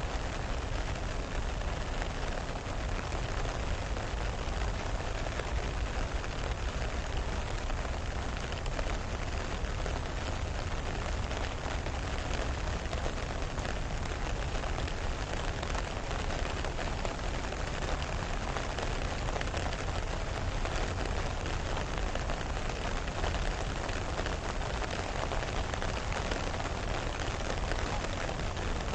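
Steady rain falling on a lake's surface and the grassy bank: an even, unbroken hiss with a low rumble beneath it.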